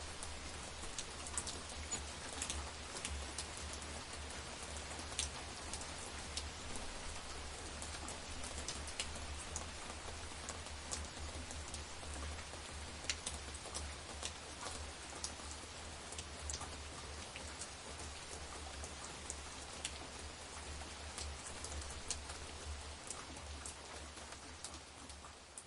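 Steady night rainfall: an even hiss of rain with many individual drops ticking sharply on nearby surfaces.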